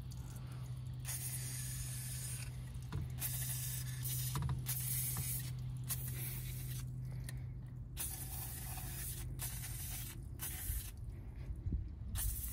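WD-40 aerosol sprayed through its straw into a small brushed electric motor in a series of short hissing bursts, flushing dark grime off the commutator and contacts. A steady low hum runs underneath.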